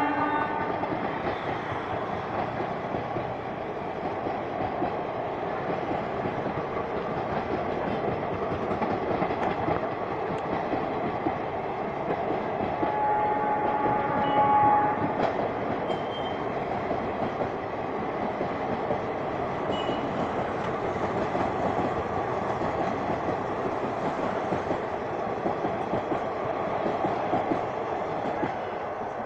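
ICF passenger coaches rolling past on the track: a steady rumble of wheels on rails with clickety-clack over the rail joints, easing as the last coach goes by at the end. A horn sounds for about two seconds about halfway through.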